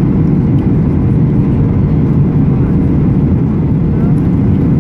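Cabin noise inside a Boeing 737-800 on approach: the steady, loud roar of its CFM56-7B engines and the air rushing over the wing and extended flaps, with a faint steady hum.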